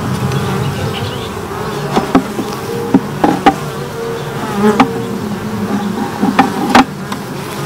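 Honeybees humming around an open hive, with single bees passing close and their pitch wavering up and down. Over the hum, about eight sharp knocks and clicks from the wooden frames and hive box as a frame is worked loose, the loudest near the end.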